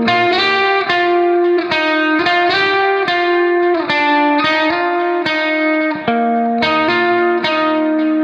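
Background instrumental music: a melody of held notes over a steady accompaniment, the notes changing about two to three times a second.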